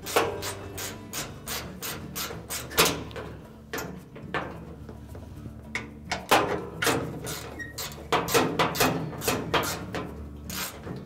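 A 3/8-inch socket ratchet clicking in quick runs of strokes as it loosens the bolts that hold a top-load washer's cabinet top, with short pauses between runs.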